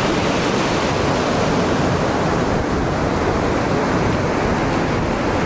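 Ocean surf: small waves breaking and washing up onto the beach in a steady rush.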